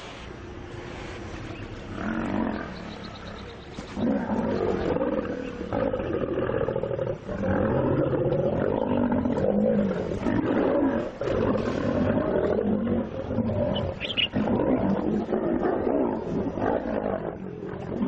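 Lions growling while attacking a crocodile. The growling is moderate for the first few seconds, then loud and almost unbroken for most of the rest, with a brief dip about seven seconds in.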